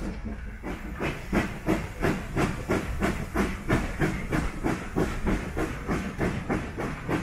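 Steam locomotive exhaust chuffing at an even rhythm of about four beats a second as the train runs, each beat a sharp puff of steam over the steady rumble of the carriage. The beats grow louder and sharper about a second in.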